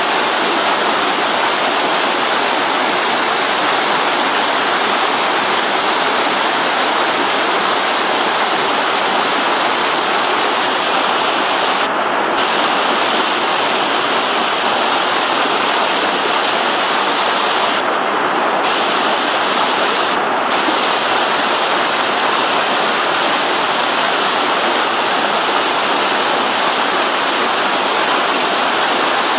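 Rushing water of a mountain stream or cascade, a steady, even rush.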